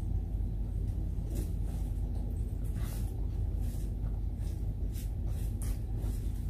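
Steady low hum with faint, scattered soft clicks from eating by hand: chewing and fingers picking at rice on a plastic sheet.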